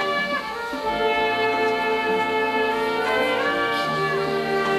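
Youth marching band's trumpets and saxophones playing sustained chords, moving to a new chord twice.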